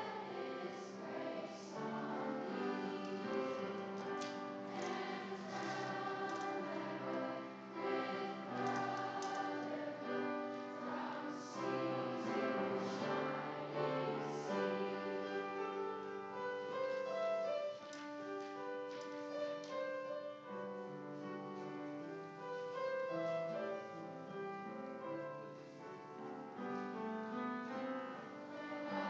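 School chorus singing with piano accompaniment.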